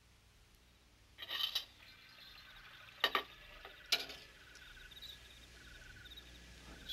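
Crickets chirping faintly and steadily, broken by a short rustle about a second in and a few sharp knocks around three and four seconds in.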